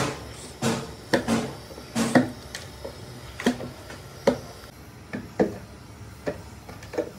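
Plastic knocks and clicks from an empty car-battery case being handled and worked on at its cell partitions: about a dozen short, irregular hits, some with a brief ring.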